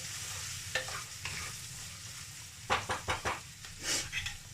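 Chickpeas, fried onion and spices sizzling in mustard oil while a spatula stirs them, scraping and knocking against the pan. There are a few single strokes, then a quick run of four or five about three seconds in.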